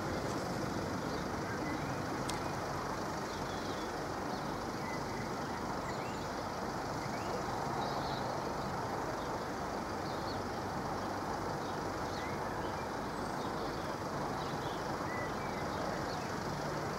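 Steady, even vehicle rumble with a few faint, short bird chirps.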